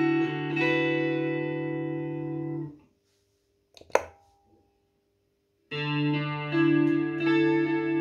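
Electric guitar chords played through a Boss CE-2 analog chorus pedal into an amp, ringing and then fading out. About a second later there is one sharp click as the pedal's footswitch is pressed by hand. Held guitar chords start again a couple of seconds after that.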